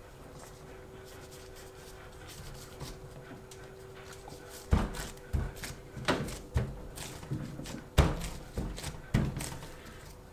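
Hands working bread dough and pressing cheese into it on a work surface, giving a run of irregular thumps and knocks that start about halfway through, a few of them loud. A faint steady hum runs underneath.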